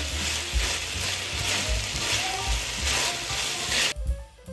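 Pork and celery stir-frying in a sauce-coated nonstick frying pan: steady sizzling while the food is stirred. It cuts off suddenly about four seconds in.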